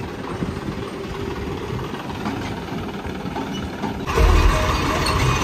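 Diesel tractor engine idling steadily. About four seconds in, the sound cuts to a louder, deeper engine rumble.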